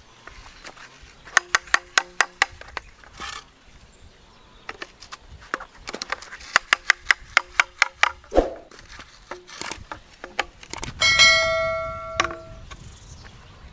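A hammer tapping PVC pipe fittings onto plastic pipes in quick runs of light knocks, about six a second, each with a short hollow ring. Near the end a bell chime sound effect rings for about a second and a half.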